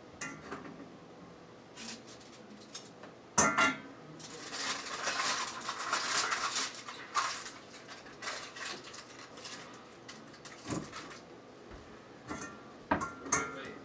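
Dishes and utensils handled on a kitchen counter: a sharp clack about three seconds in, a few seconds of busy clattering and rubbing noise in the middle, and a few more clinks near the end.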